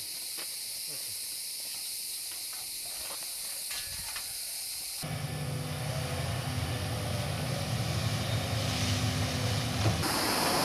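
A steady hiss with a few faint clicks, then, about halfway through, a tracked excavator's diesel engine running steadily with a low, even drone.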